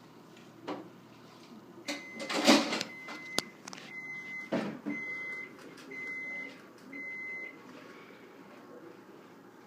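A few knocks and a short, loud rustling burst, then an electronic beep sounding four times, each about half a second long and about once a second.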